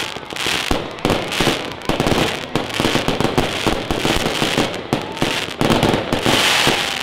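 Fireworks going off in quick succession: a dense run of sharp cracks and pops over a steady crackle.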